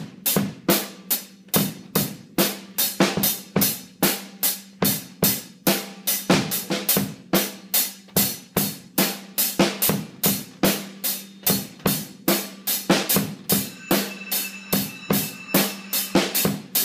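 Acoustic drum kit played in a steady, even beat of about three strokes a second, with a low drum ring held under the hits.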